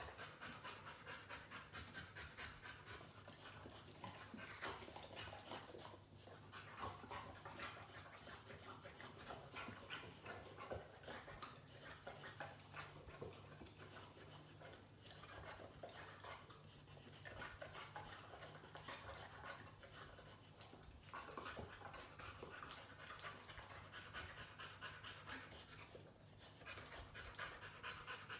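Boxer dog panting steadily, a few quick breaths a second, pausing briefly a few times.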